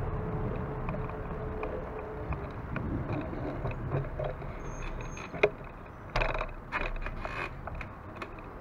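Wheels rolling over paving stones: a steady low rumble with many scattered rattling clicks and knocks. A few louder rushing bursts come about six to seven and a half seconds in.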